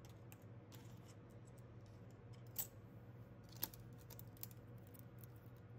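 Light clicks and taps of plastic nail-polish swatch sticks being handled and set down on a table, with two sharper clicks about a second apart near the middle, over a faint steady low hum.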